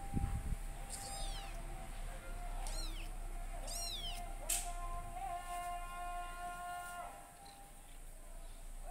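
Kitten mewing: three short, high, falling calls in the first half, over background music with held notes.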